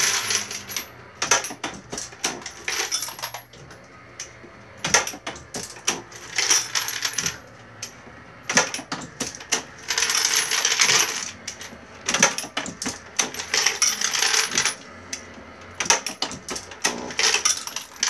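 Mark 7 650 Pro automated reloading press cycling smoothly while processing 9mm brass. Brass cases clink and rattle through the feeder and press, with a louder burst of rattling about every four seconds.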